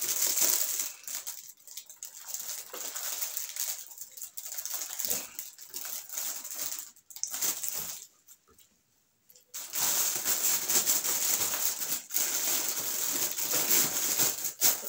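Paper tissue rustling and crinkling as it is handled, with a short near-silent pause about eight seconds in.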